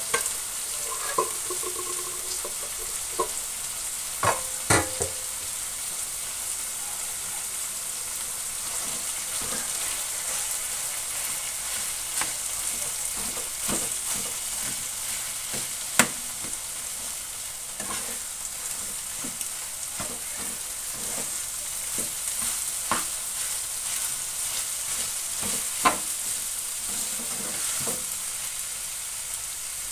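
Fried rice sizzling in a frying pan over a gas flame while a metal spatula stirs and scrapes it, with sharp clicks of the spatula against the pan every few seconds.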